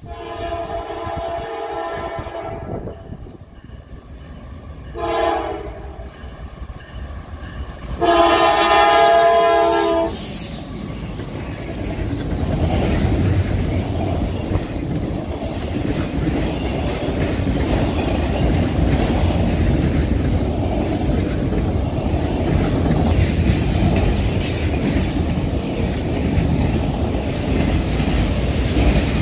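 A freight train led by a GE Dash-9 locomotive sounds its horn, a chord of several notes, in three blasts: long, short, then a louder long one ending about ten seconds in. After the horn the train passes close by, and a long string of autorack cars rolls past with a steady rumble and the clickety-clack of wheels over the rail joints.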